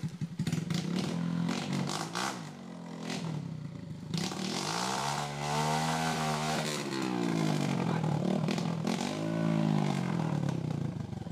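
Trail motorcycle's single-cylinder engine revved up and down repeatedly in two long swells, with a smaller blip before them and clattering knocks in the first seconds, as the bike works its way through mud.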